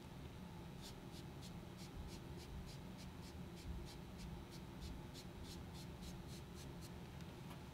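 PanPastel sponge applicator rubbing back and forth across drawing paper, a faint scratch with each stroke at about three strokes a second, as pastel colour is blended into a smooth transition.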